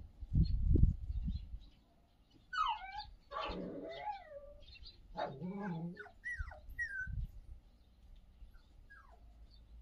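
A low thumping rumble for about the first second and a half. Then a puppy whimpers: several short, high, wavering whines that rise and fall, spread a second or two apart and growing fainter toward the end.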